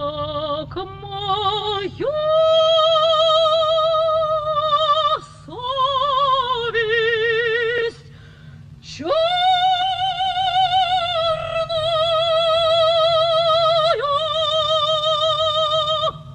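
Operatic soprano singing slow, long-held notes with wide vibrato, in a few phrases separated by short breaths; the longest note starts about nine seconds in.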